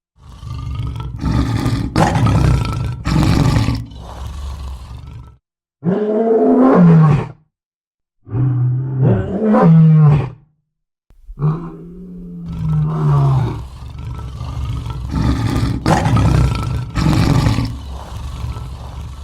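Lion roaring: a series of deep, rasping roars and moaning calls that fall in pitch, one after another, broken by a few short dead-silent gaps.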